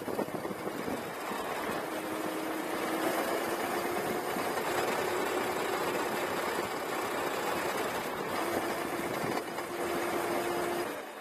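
Razor Ground Force electric go-kart driving along a paved street: the motor's steady whine comes and goes over tyre rumble and wind noise.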